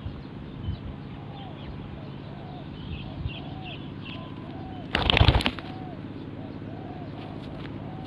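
Spotted dove cooing, a run of short arched coos repeated every half second or so, with faint higher chirps of small birds early on. About five seconds in there is a short, loud rustling burst.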